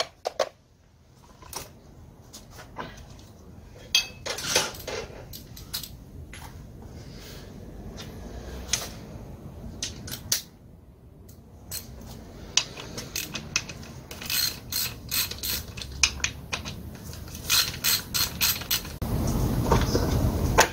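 Hand tools and metal parts clicking and clinking as a TCS-5000 chainsaw is taken apart on a workbench, with runs of quick, even clicks in the second half and louder handling noise near the end.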